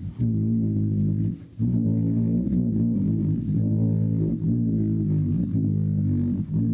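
Instrumental band music: plucked guitar over bass guitar, with a short break about a second and a half in.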